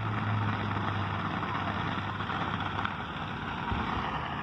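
A steady low hum, like a motor running, over an even hiss; the hum fades out about three seconds in.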